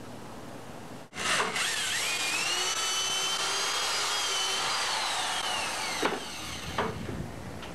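Electric drill motor whining up to speed, running at a steady high pitch for about three seconds, then winding down and stopping.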